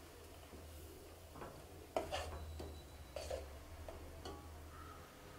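Steel spoon stirring vermicelli and milk in a stainless-steel pot, giving a few faint scrapes and clinks against the pot, the loudest about two seconds in, over a low steady hum.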